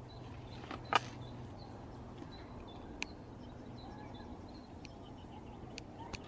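Outdoor ambience: a steady low hum under a soft rustling noise, with faint scattered bird chirps. A sharp click comes about a second in and a smaller one around three seconds.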